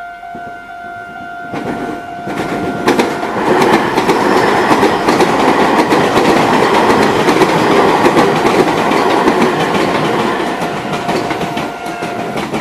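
Meitetsu 2200 series electric train passing at speed, its wheels clattering over the rail joints, loudest for most of the pass. A level crossing's warning bell sounds steadily throughout and stops near the end as the train clears.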